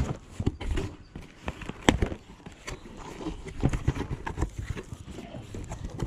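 Cardboard box being opened with a box cutter: the blade slicing packing tape and cardboard, then the flaps pulled open, giving irregular scraping, tearing and sharp clicks and knocks.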